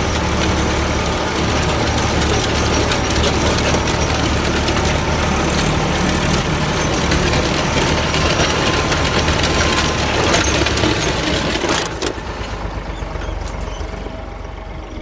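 Tractor engine running under load while a mounted disc plough cuts through dry soil: a low steady engine hum under a loud scraping hiss of the discs and soil. About twelve seconds in the scraping falls away and the engine goes on, quieter.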